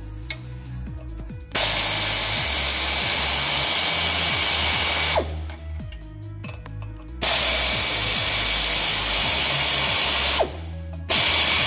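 Pneumatic air ratchet running in three bursts, two of about three seconds each and a short one near the end, with a loud air hiss as it works on the clutch pressure-plate bolts.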